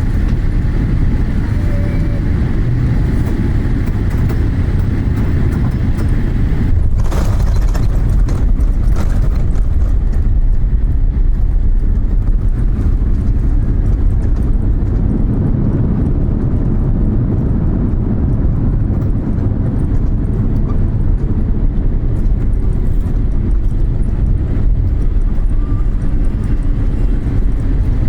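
Boeing 787 jet engines rumbling, mixed with heavy wind buffeting on the microphone. There is a brief louder rush of noise about seven seconds in.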